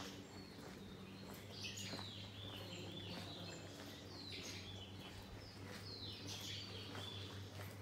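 Birds chirping, with short calls coming in clusters every second or two over a low steady hum.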